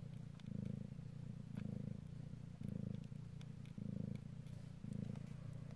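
Mother cat purring steadily while in labour, the purr swelling and easing with each breath about once a second.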